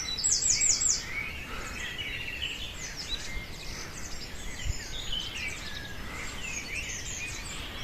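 Many small birds chirping and twittering at daybreak, with short whistled sweeps from several birds at once and a quick run of four high notes about half a second in.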